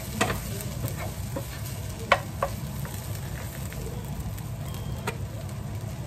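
Rice frying in a frying pan on a gas stove, stirred and pushed about with a wooden spatula, with a few sharp knocks of the spatula on the pan, the loudest about two seconds in.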